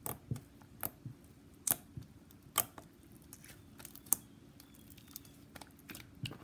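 Soft white glue slime, softened with lemon juice, being poked and kneaded by hand, giving irregular sticky clicks and pops about once or twice a second.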